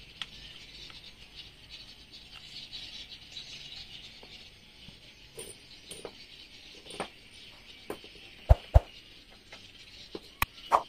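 Loose steel bolts and screws clinking as a hand picks through them on a cloth, in scattered sharp clicks with two louder ones past the middle and a few more near the end. A steady high-pitched hiss runs underneath.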